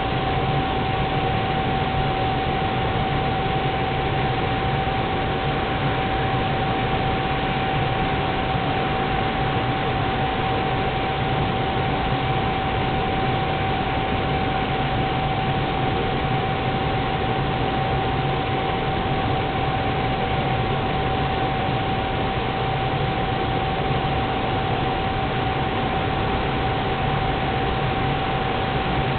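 Propane turkey-fryer burner burning at a steady flame: an even rushing hiss with a constant mid-pitched hum through it, as it heats the oil.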